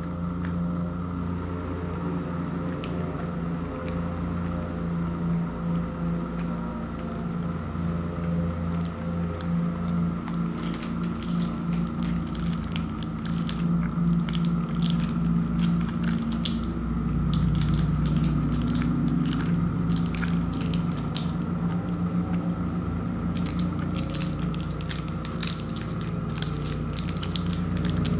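Fun-size Snickers bar wrappers crinkling as they are peeled open by hand, in spells of crackle from about ten seconds in, over a steady low hum.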